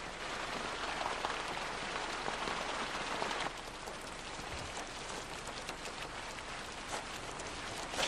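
Running water rushing and splashing in a steady hiss, a little quieter from about three and a half seconds in.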